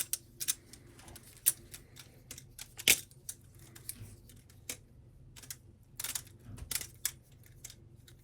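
Squid Industries Nautilus butterfly knife being flipped, its aluminum and G10 handles clacking against each other and the blade tang in quick, irregular metallic clicks, a few of them sharp snaps.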